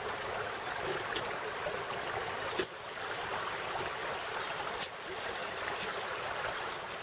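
Steady rush of a mountain stream, with a few sharp clicks about a second apart as a knife blade is pushed down through a wooden stick.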